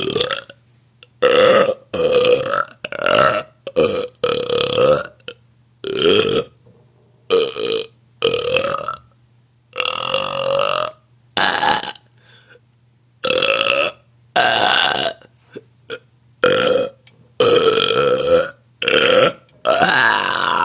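A woman belching on purpose: a quick run of about fifteen loud, deliberate burps, each under a second long, with short pauses between them. The last burp, near the end, rises and then falls in pitch.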